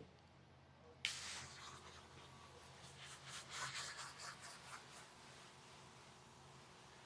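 Faint rubbing and rustling handling noises, starting with a sharp click about a second in and dying away after about four seconds, then quiet room noise.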